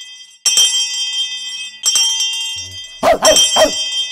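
Intro jingle: two bright bell-like chime strikes, each ringing out, then three quick dog barks near the end.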